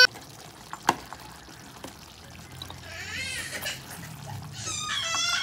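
Chicken stew being ladled into a glass bowl, with faint liquid pouring and splashing and a single clink about a second in. Near the end a baby starts to cry, a wavering wail that grows loudest at the close.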